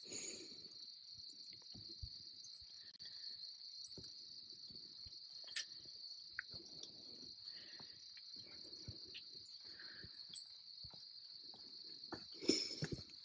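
Steady, high-pitched chorus of insects that keeps on unbroken, with faint rustling steps in dry leaves that grow louder near the end.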